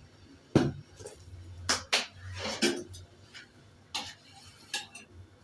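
Cooking pot and kitchen utensils knocking and clattering: about half a dozen sharp knocks with a short scrape between them, the loudest about half a second in.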